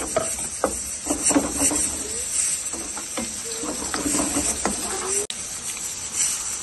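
Sliced onions sizzling in oil in a nonstick frying pan, stirred with a plastic slotted spatula that scrapes and taps against the pan again and again.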